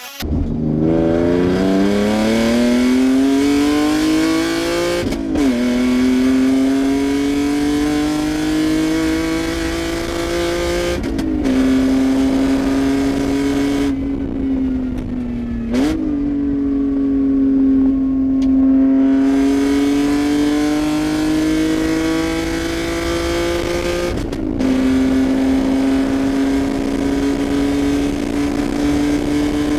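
Car engine accelerating hard through the gears: its pitch climbs and drops sharply at each of four upshifts, then holds fairly steady at speed.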